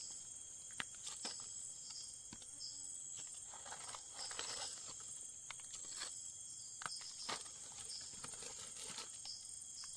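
Insects buzzing steadily in the forest, with a pulsing chirr underneath, over scattered crackles and rustles of dry leaf litter being stepped on or disturbed.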